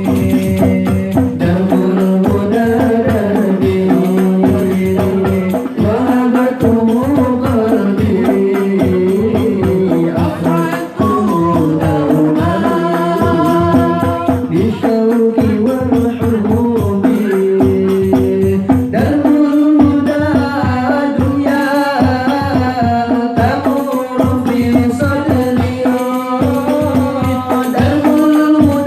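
Hadroh ensemble performing an Islamic sholawat song: frame drums (rebana) beat a steady, fast rhythm under a sung melody with long held notes.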